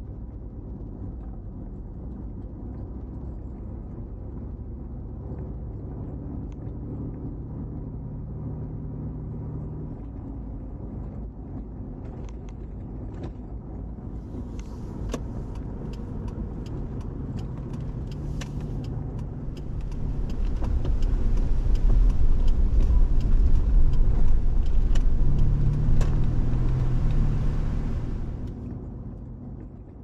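Car heard from a dash camera, driving slowly on a narrow forest road: a steady engine hum that rises and falls in pitch. From about halfway the tyres add a hiss and crackle over fallen leaves and twigs. The sound grows louder near the end, then fades out.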